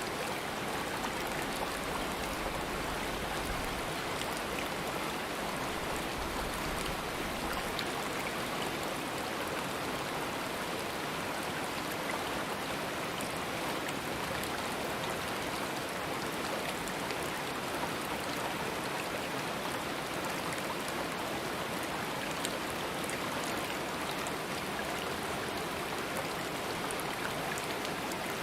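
Stream water flowing and splashing steadily over rocks, a continuous rushing hiss with fine crackling detail.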